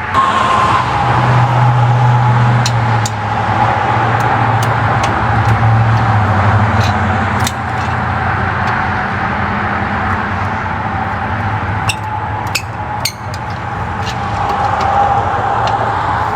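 A motor vehicle engine running steadily, its pitch dipping slightly just after the start, with a few light clicks over it.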